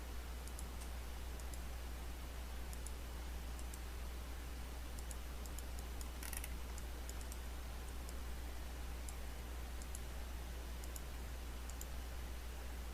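Scattered faint computer mouse clicks over a steady low hum, with one louder click about six seconds in.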